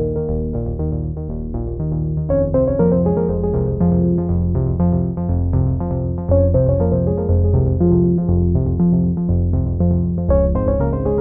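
Background music: quick repeated notes over a steady bass line.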